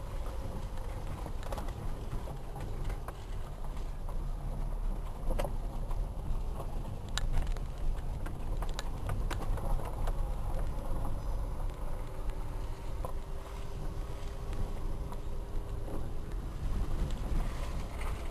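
Dacia Logan driving down a rough unpaved mountain track: a steady low rumble with scattered sharp knocks and clicks, and a faint steady whine in the second half.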